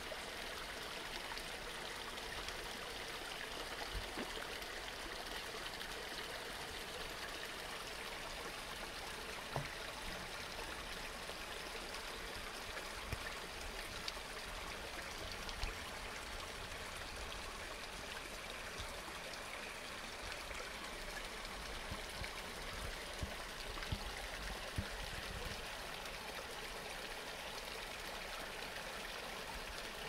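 Steady rushing of a small stream or brook, with a few light taps over it.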